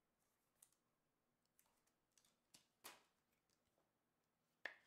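Faint clicks and plastic rustles of a trading card being slid into a clear plastic sleeve and handled on a table: a few scattered soft ticks, a sharper click about three seconds in, and the loudest click near the end.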